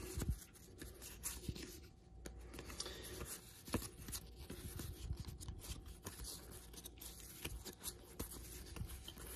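A stack of 1987 Topps baseball cards being slid and fanned through by hand: faint scratchy rustling of cardboard on cardboard, with small clicks as card edges catch and snap past each other.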